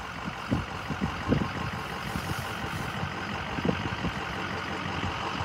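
Steady low rumbling background noise with a few soft knocks, most of them in the first second and a half.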